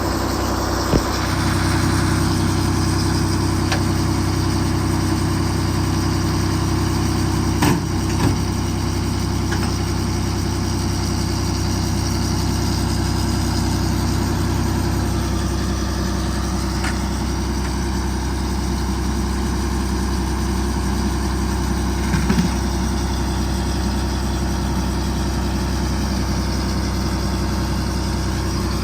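Excavator engine idling steadily, with a few short sharp knocks about a second in, around eight seconds in and past twenty seconds.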